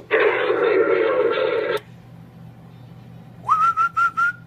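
CB radio test transmission: a loud burst of rushing hiss, cut off above a few thousand hertz like radio audio, lasting about two seconds. Near the end comes a short warbling whistle tone that rises and then holds with a few wobbles.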